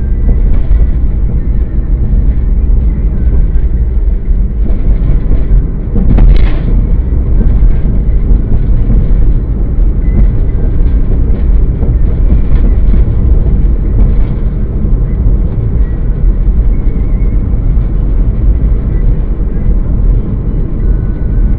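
Car driving, heard from inside the cabin: a steady low rumble of road and engine noise, with one sharp thump about six seconds in.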